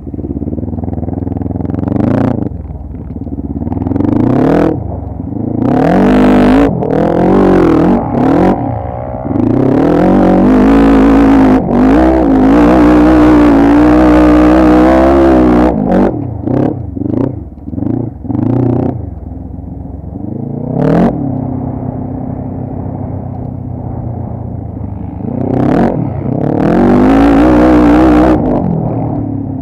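Quad bike (ATV) engine revving up and down in short throttle blips, then held at high revs in a long pull from about ten to sixteen seconds in, and again briefly near the end.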